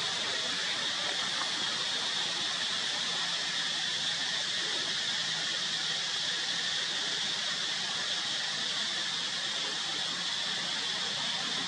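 Steady outdoor forest background hiss, even in level and strongest in a high band, with no monkey calls or crying.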